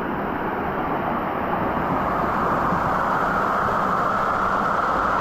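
Steady rush of falling, splashing water, growing a little louder in the first couple of seconds.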